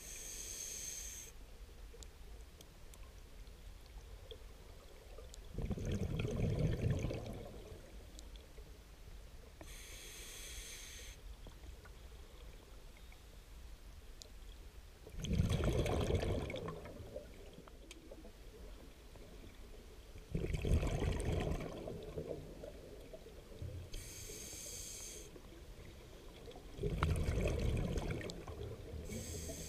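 Scuba diver breathing through an open-circuit regulator underwater: short hissing inhalations through the regulator alternate with louder bursts of exhaled bubbles. There are four bubble bursts, each lasting one to two seconds, several seconds apart.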